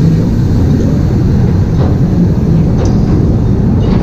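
Mine-ride ore-car train rolling along its track: a steady low rumble with a few faint clicks in the second half.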